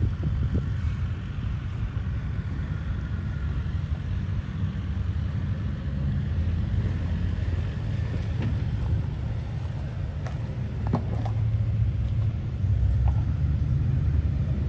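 A steady low rumble, with a few faint knocks about eight to eleven seconds in.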